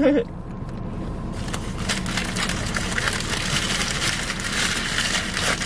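A thick smoothie slurped through a straw: a continuous crackly, sputtering suck that starts about a second in, over a steady low hum.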